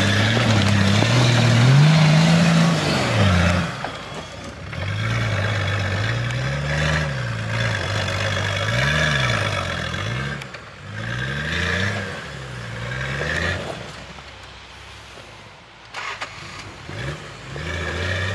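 Off-road Nissan Patrol 4x4's engine revving up and down over and over under load as it climbs a snowy slope, its pitch rising and falling every second or so. It eases to a low lull about three-quarters of the way through, then revs up again near the end.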